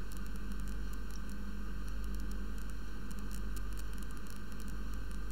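Steady hiss with a low electrical hum: the background noise of a desk microphone, with no other sound over it.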